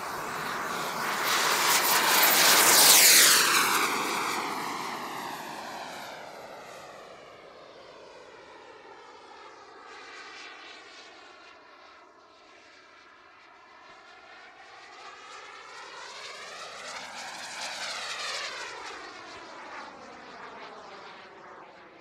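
Turbine of a radio-controlled Aviation Design Diamond sport jet at full power on take-off, loudest about three seconds in and dropping in pitch as it passes, then fading as it climbs away. It grows louder again and passes once more about three-quarters of the way through.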